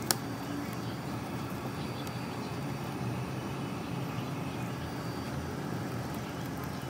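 Steady low background rumble, like distant traffic, with a single sharp click just after the start.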